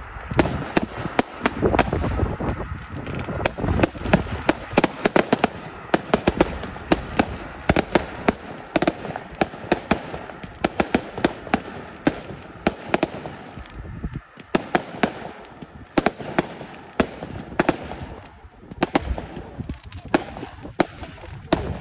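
Aerial fireworks display: a rapid, irregular string of sharp bangs and crackles from shells bursting, several a second, over a continuous low rumble, easing briefly about two thirds of the way through.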